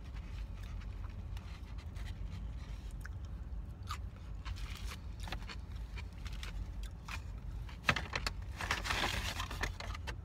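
Close-up chewing and crunching of a lettuce-wrapped burger and fries, with small wet clicks of the mouth, over a steady low hum. A louder rustle comes about eight seconds in.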